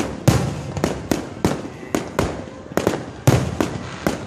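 Aerial fireworks bursting in a rapid series of booms and cracks, roughly three a second, each trailing off briefly before the next.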